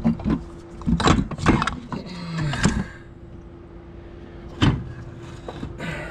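Metal knocks and clunks, with a scraping slide in the middle, as a CV axle and its bracket are worked out of the transmission. A steady faint hum runs underneath.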